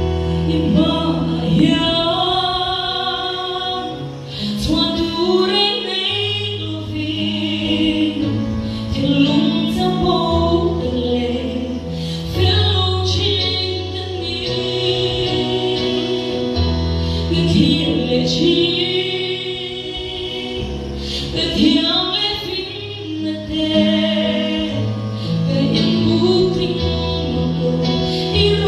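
A woman singing a gospel song with vibrato, over an instrumental backing of long held bass notes.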